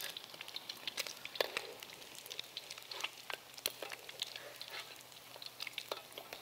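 Crab omelet deep-frying in a wok of hot oil: a steady sizzle with many irregular crackles and pops.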